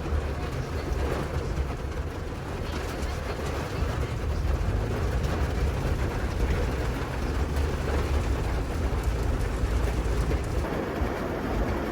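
A passenger train running, heard from inside the carriage as a steady low rumble with faint wheel noise.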